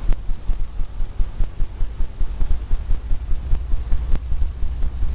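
Blender brush being worked quickly over a wet oil-painted canvas: a fast, uneven rubbing with low thuds through the easel and a few sharper taps.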